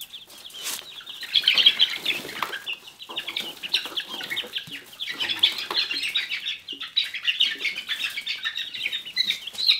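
Young chickens in a wire brooder pen peeping rapidly and flapping their wings as they scramble away from a hand reaching in to catch them.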